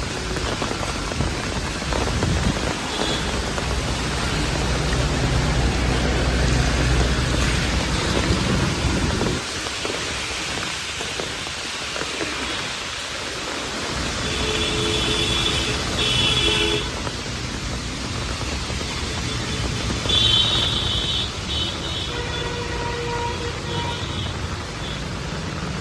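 Rainy street ambience: a steady hiss of rain and traffic, with a vehicle engine rumbling low through the first third. A few short high tones sound in the second half.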